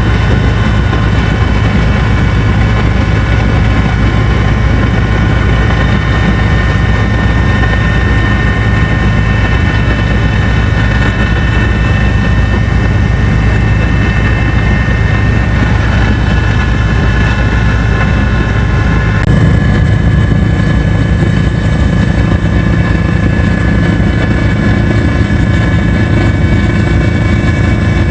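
Helicopter in flight, heard from inside the cabin: a loud, steady drone of rotor and turbine engine with several fixed whining tones. The tones shift abruptly about two-thirds of the way through.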